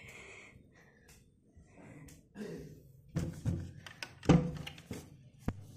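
A few short dull thumps and knocks, the loudest a little over four seconds in.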